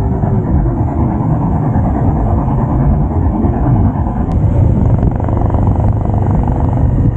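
Bajaj Pulsar 150's single-cylinder engine running as the motorcycle is ridden along the road, a steady, heavy rumble.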